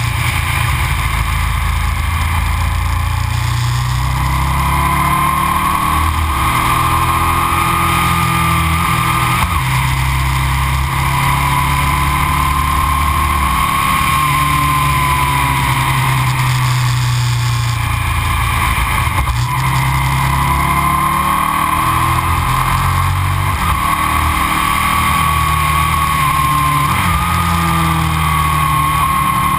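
2000 Aprilia RSV 1000 V-twin motorcycle engine through Arrow aftermarket silencers, heard from on the bike while riding. The engine note rises and falls several times as the rider opens and closes the throttle through the bends.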